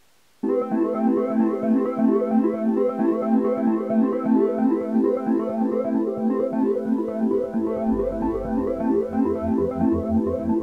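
Background music: a quick, repeating keyboard pattern of many notes a second starts about half a second in. A steady bass line joins about three-quarters of the way through.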